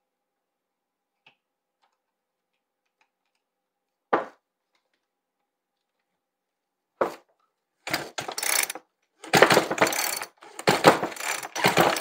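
Recoil starter cord of a Poulan two-stroke chainsaw pulled three times in quick succession from about eight seconds in, turning the engine over with a rattling, ratcheting sound, after two short clacks. The engine is being cranked only to check for spark with a spark tester, and the spark shows.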